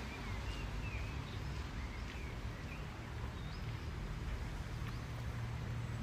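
Steady low background hum and noise with a few faint, short high chirps during the first three seconds.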